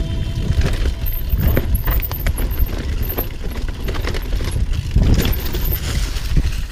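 Mountain bike rattling over a rough dirt trail strewn with dry leaves: irregular knocks and clatter from the bike as the tyres roll over bumps, over a steady low wind rumble on the microphone.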